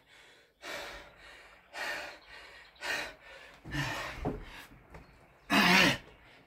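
A man breathing hard from exertion during Navy Seal burpees: about five heavy, hissing breaths roughly a second apart. The loudest, near the end, is a voiced gasp.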